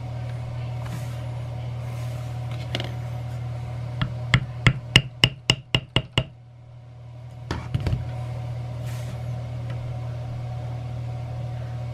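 Mallet blows on a small metal basket-weave stamp, pressing the pattern into tooling leather: a quick run of about nine sharp taps, about four a second, a little past the middle, then two or three more a moment later. A steady low hum runs underneath.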